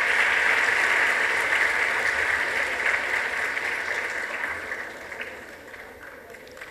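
Audience applauding, steady at first and then dying away over the last two seconds.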